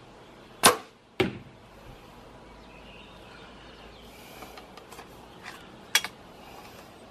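Compound bow shot: a loud snap of the string as the arrow is loosed, then a second sharp hit about half a second later as the arrow strikes the target. Lighter clicks and one more sharp click follow near the end as the bow and the next arrow are handled.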